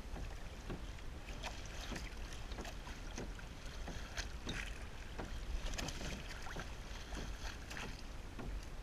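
Water slapping and splashing irregularly against the hulls and outrigger floats of a Hobie Mirage Tandem Island trimaran moving slowly under sail, with a low wind rumble on the microphone.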